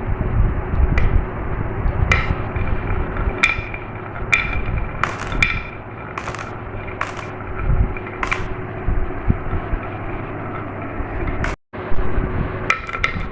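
Glass marbles rolling along a marble-run track, a steady low rumble broken by irregular sharp clicks, about one a second, each ringing briefly as marbles strike the track or each other. The sound cuts out for an instant near the end.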